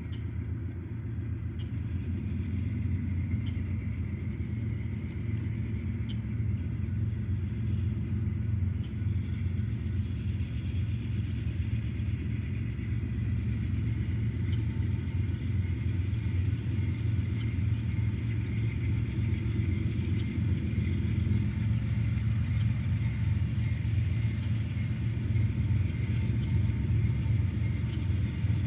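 Diesel locomotives approaching from a distance: a low engine rumble that slowly grows louder.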